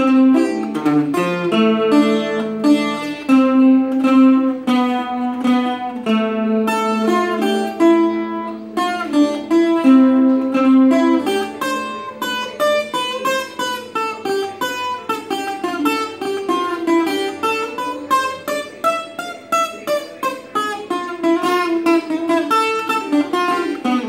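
Puerto Rican cuatro, a ten-string instrument in five doubled courses, played solo: a quick plucked melody over held low notes. In the middle a run of notes falls and then climbs back up.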